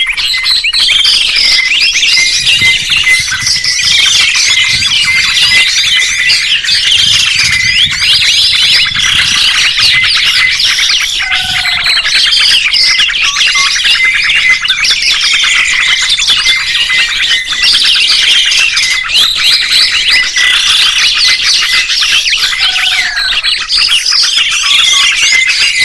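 Dense chorus of small songbirds chirping and twittering together, quick high notes overlapping without a break; the same passage seems to come round again about every eleven seconds.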